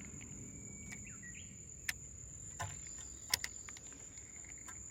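Steady, high-pitched insect trill, with a few sharp clicks and a brief faint bird chirp about a second in.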